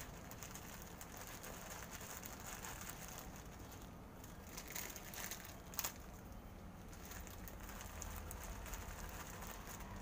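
Faint rustling and crackling as cat food is handled from a plastic packet into paper trays, with one sharp click about six seconds in.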